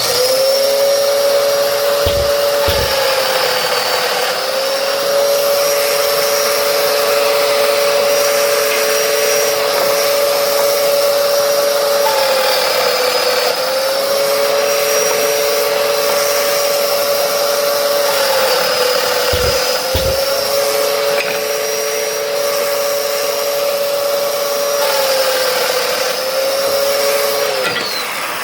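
Festool Domino joiner's motor running steadily with a hiss over it, its pitch sagging four times as it plunges and cuts mortises into the mitred frame pieces. Low thumps come twice, a few seconds in and about two-thirds of the way through.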